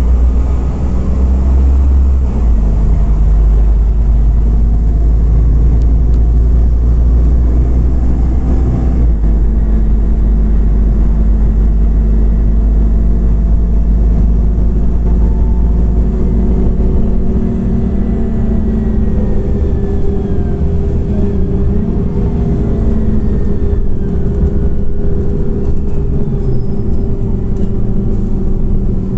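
Scania OmniCity CNG city bus under way, heard from inside the cabin: the gas engine's steady rumble with road noise, its pitch stepping a couple of times early on as the bus changes speed.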